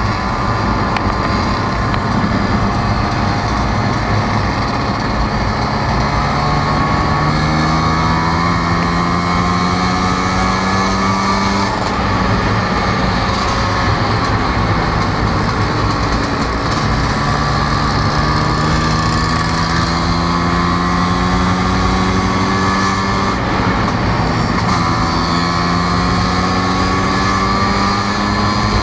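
Vespa scooter engine running while riding at road speed, with steady wind noise. The engine note climbs slowly and drops back twice.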